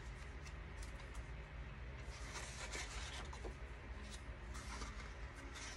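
Sheets of printed cardstock sliding and rustling against each other as they are turned over by hand, with several soft paper swishes.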